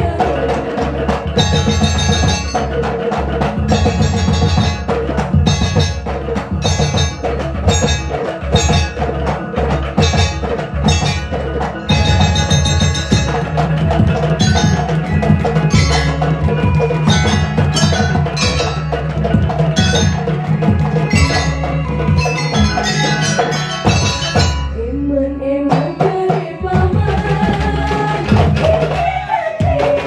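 Banyuwangi-style gamelan ensemble playing: kendang hand drums beating a busy rhythm under ringing bronze metallophones. The texture thins out briefly near the end and then picks up again.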